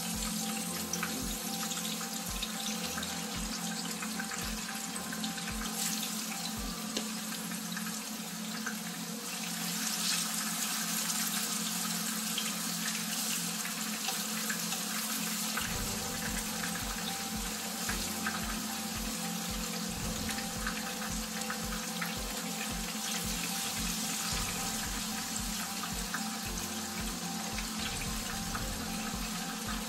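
Seasoned pork pieces sizzling steadily as they fry in hot oil in a frying pan.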